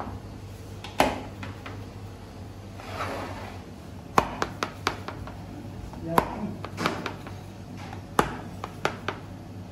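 A long knife cutting rows through a metal tray of crisp pistachio rolled baklava: sharp clicks and taps as the blade strikes the tray, the loudest about a second in and then roughly every two seconds, with a soft crackling scrape of pastry being cut about three seconds in.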